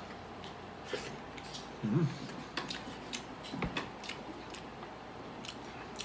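Close-up chewing and mouth sounds of a person eating grilled chicken, with scattered small clicks from fingers picking at the meat on the plate. A short low voiced sound comes about two seconds in.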